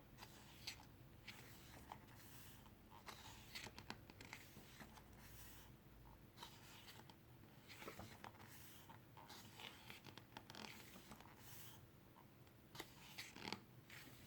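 Faint rustling and soft scattered clicks of glossy photobook pages being handled and turned.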